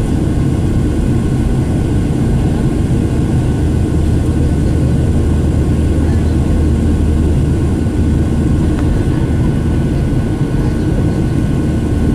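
Steady cabin noise of a Boeing 737-800 with its CFM56-7B jet engines running, heard from a window seat: a loud, even rumble with a faint steady whine above it.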